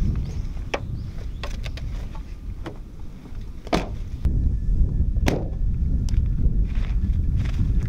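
Wind rumbling on the microphone, with a string of short clicks and knocks as things are handled at an open car door. The door is shut with a knock about five seconds in.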